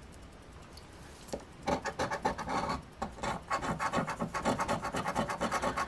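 Scratch-off lottery ticket being scratched: after a quiet start, rapid short scraping strokes several times a second begin about a second and a half in and keep going.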